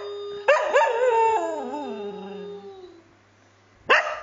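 Cocker spaniel howling and barking. A held howl breaks into two sharp barks about half a second in, then a wavering howl slides down in pitch and dies away by about three seconds, and one more bark comes near the end.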